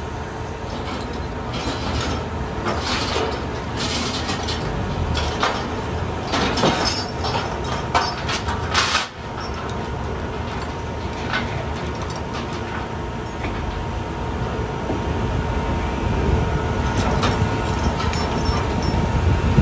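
Heavy vehicle engines idling in a steady low rumble with a faint steady whine, and a string of sharp metallic clanks and knocks in the first half.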